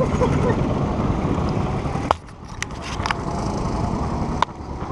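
A go-kart running at low speed: a low, noisy mechanical sound with a few sharp clicks and knocks. It drops off suddenly about two seconds in, builds back up soon after, and dips again after a knock near the end.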